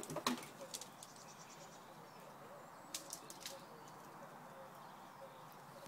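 Quiet chicken house with a few soft clicks and scratches from chickens moving about in the shavings, and a faint high trill about a second in.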